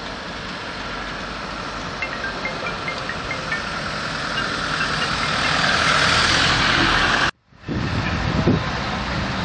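Road traffic going by: a truck and a van driving past, with engine and tyre noise that swells to its loudest about six seconds in and then cuts off abruptly. A few short high chirps sound early on the first scene. After the cut there is a different, lower outdoor background.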